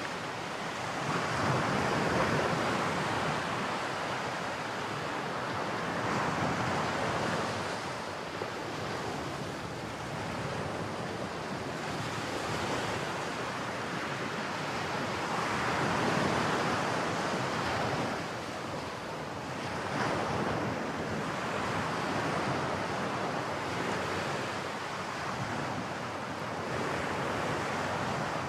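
Ocean surf breaking below, a steady rush that swells and fades every few seconds, with wind blowing on the microphone.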